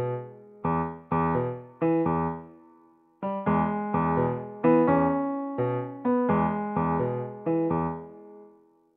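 Background music: a piano-style keyboard playing struck chords, about two a second, each ringing and dying away. It breaks off briefly about three seconds in and fades out near the end.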